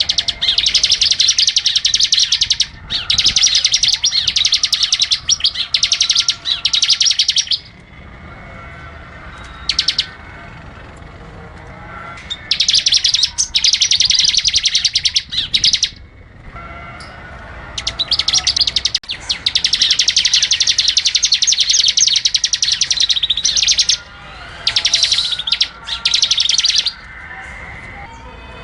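Small songbird singing long, rapid, high-pitched trills, several phrases of a few seconds each with short pauses between: a masteran song recording used to tutor caged songbirds.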